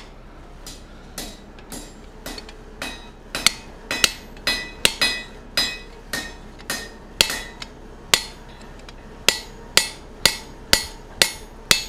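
Blacksmith's hand hammer striking a punch driven into red-hot steel on an anvil, about two blows a second with a few short pauses. Each blow rings briefly. This is the eye of a monkey tool being punched through the hot bar.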